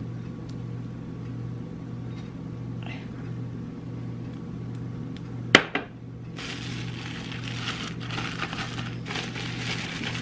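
A bowl set down on the counter with one sharp knock a little past halfway, followed by the plastic turkey oven bag rustling and crinkling as butter is brushed onto the turkey and the bag is handled. A steady low hum runs underneath.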